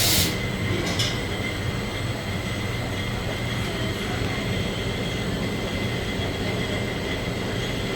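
Bottling-line machinery running steadily: an even mechanical drone with a low hum and a thin, steady high tone. A loud hiss cuts off just at the start, and there is a single click about a second in.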